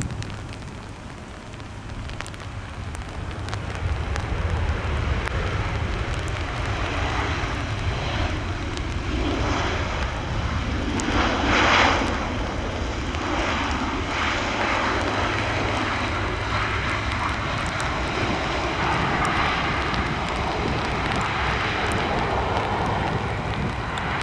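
Boeing 737-700 jet engines running as the airliner lands and brakes on a wet runway. The noise builds over the first few seconds, is loudest in a brief surge about halfway through, then holds steady.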